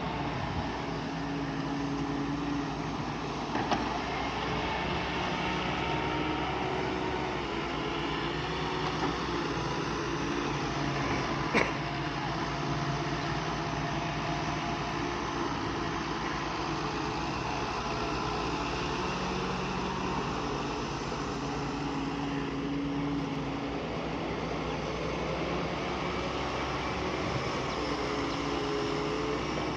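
Diesel engine of heavy earthmoving machinery running steadily as it works, its pitch shifting now and then, with a sharp knock about 4 seconds in and another about 12 seconds in.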